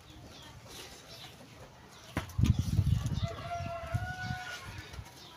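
A rooster crowing once, a drawn-out crow lasting over a second, a little past the middle. Before it, about two seconds in, comes a louder burst of low thumping and rustling close to the microphone.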